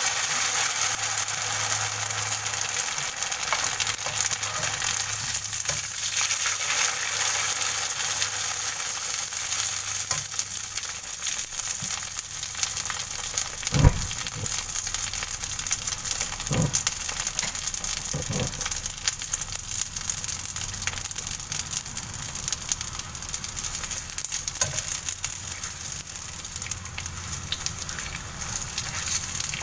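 Noodles frying in hot oil in a pan: a steady, dense sizzle and crackle. A few dull knocks come through near the middle, the first one the loudest.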